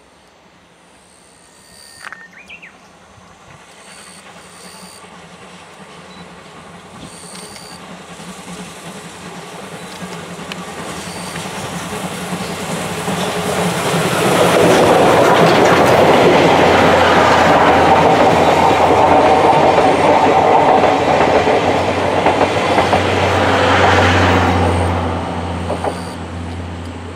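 Steam locomotive C61 20 hauling a train of passenger coaches approaches and runs past close by. It grows steadily louder for about fifteen seconds, stays loud for roughly ten more as the coaches go by, then fades near the end.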